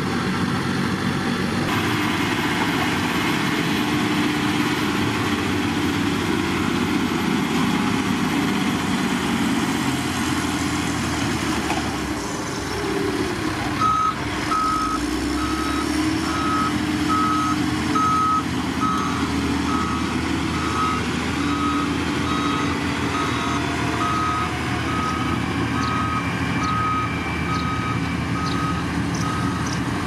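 Heavy diesel engines of road-building machinery, a road roller and a motor grader, running steadily. From about halfway through, a reversing alarm beeps one steady tone at an even pace.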